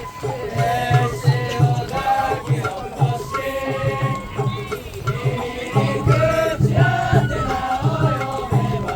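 Japanese festival hayashi music: a bamboo-flute melody over steady, regular taiko drumbeats, playing a popular tune.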